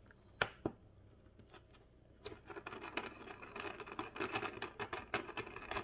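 Watch bezel being pressed onto a stainless steel watch case in a hand crystal press with nylon dies: a sharp click about half a second in, then a dense run of small clicks and crackles from about two seconds in, as the parts are handled and pressed together.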